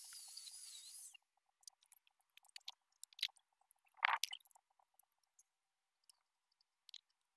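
Electric angle grinder cutting metal, a steady hiss with a high wavering whine that stops about a second in. Scattered clicks and knocks follow as the tool and parts are handled, the loudest about four seconds in.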